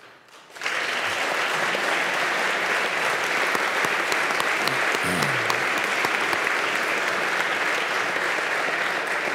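A large seated crowd applauding: steady, even clapping that starts abruptly about half a second in and holds without letting up.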